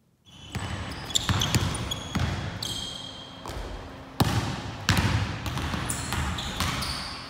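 A basketball being dribbled on a hardwood gym floor: a string of sharp bounces at uneven spacing, with short high squeaks between them.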